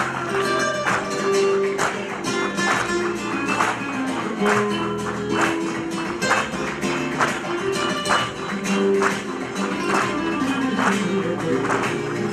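Flamenco music: guitar over a steady percussive beat.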